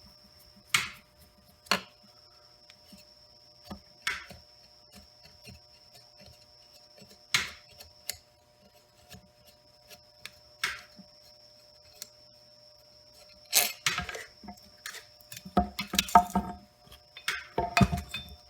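Sharp metallic clicks and taps of a flat screwdriver working the screws and cover of a circulator pump's wiring box, a single click every few seconds, then a busier run of clinks and knocks near the end.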